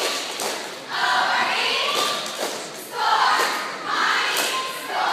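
Group of young cheerleaders chanting a cheer together in two long phrases, with sharp claps and stomps between and under the words.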